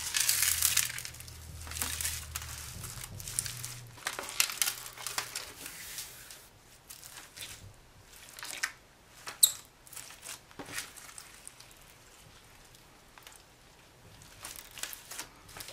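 Slime mixed with sequins, beads and glitter being kneaded and stretched by hand: irregular sticky squishing and crackling, densest near the start, with one sharp click about nine seconds in.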